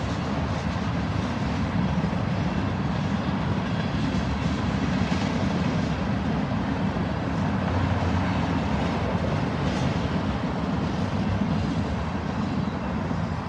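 Freight cars of a mixed freight train rolling past, a steady noise of steel wheels on rail.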